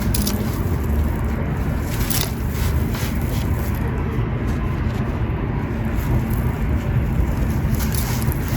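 Red gritty sand-cement being crunched and crumbled: a dense, continuous gritty crunching with a few sharper cracks.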